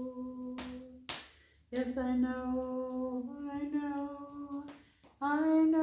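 A woman singing a slow lullaby unaccompanied, holding long notes with short pauses between phrases.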